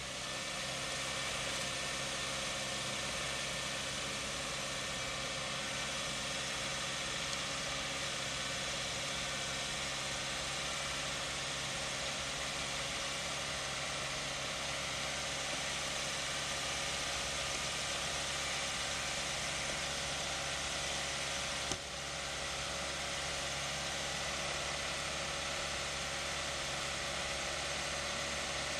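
Car engine idling steadily under a constant hiss, with one brief click about three quarters of the way through.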